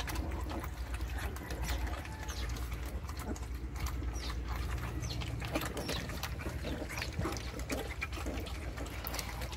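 A litter of 26-day-old German shepherd × Belgian cross puppies lapping and slurping soft food from one shared bowl: many small wet smacks and clicks, irregular and overlapping.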